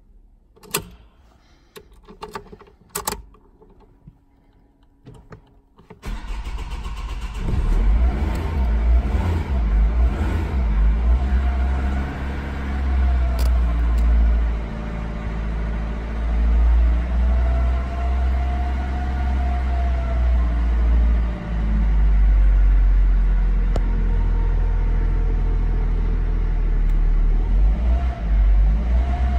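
Opel Astra H 1.7 CDTI diesel engine cold-starting after standing overnight: a few sharp clicks from the key and ignition, then about six seconds in the engine fires and runs. It is held on the throttle at raised revs, the pitch rising and falling, before easing back toward idle. This is the start that stalls unless revved, a fault the owner puts down to the fuel filter not holding fuel overnight.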